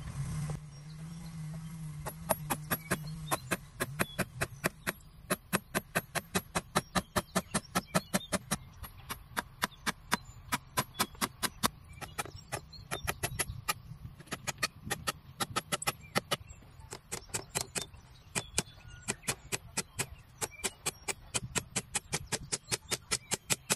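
Claw hammer tapping small nails into bamboo slats, a quick even run of light strikes at about three a second that begins about two seconds in.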